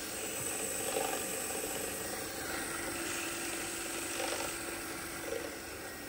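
TOS-Kuřim FNK 25 vertical turret milling machine's spindle running steadily at 900 rpm, driven by its two-speed motor through the belt-and-pulley drive. A faint steady tone sounds for a few seconds in the middle.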